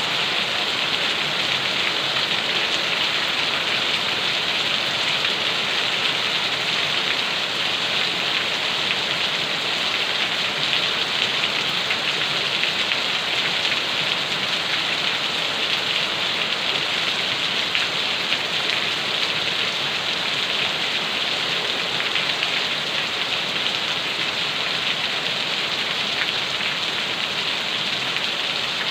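Steady rainfall, a dense even patter of drops on a surface with no let-up.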